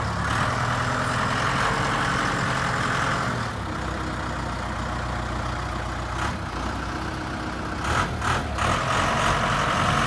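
Case 590 Turbo loader backhoe's turbocharged diesel engine running, its note easing about a third of the way in and rising again near the end.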